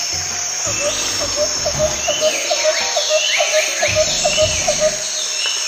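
Forest ambience: a steady high drone of insects with bird chirps. Through the middle few seconds a short call repeats about four times a second.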